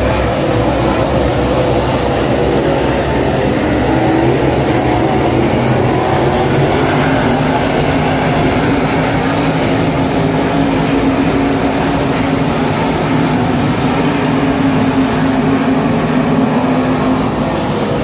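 A pack of dirt super late model race cars' V8 engines running laps together as one loud, steady drone, their pitch slowly rising and falling as the cars circle the track.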